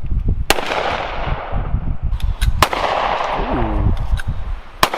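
Three loud gunshots about two seconds apart, with a few fainter cracks between them.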